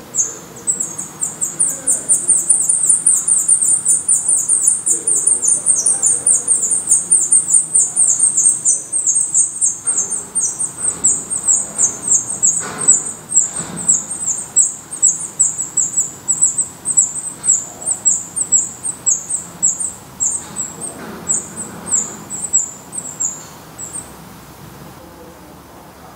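Black redstart nestlings begging: a long run of high, thin cheeps, several a second, loudest in the first half and fading away near the end.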